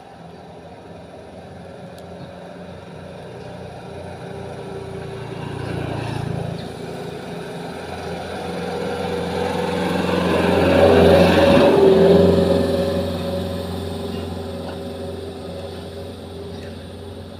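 A motor vehicle passing by: its engine hum builds slowly, is loudest about eleven to twelve seconds in, then fades away.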